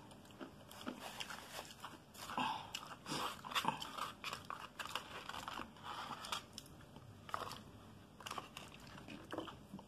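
Faint close-up mouth and hand sounds: scattered small clicks and crackles at irregular intervals, a few louder than the rest.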